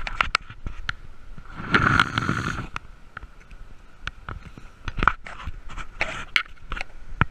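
Semi-trailer rolling at road speed on a wheel whose bearing has failed and is smoking: scraping and irregular knocks over a steady high whine, with a louder rushing surge about two seconds in.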